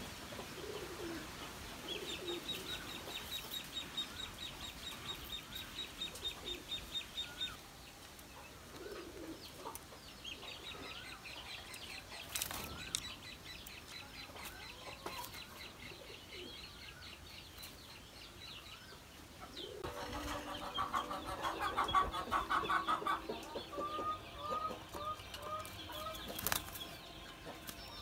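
Caged doves cooing low and flapping their wings, with two long high, rapid trills in the background. Near the end, a louder series of short clucking calls.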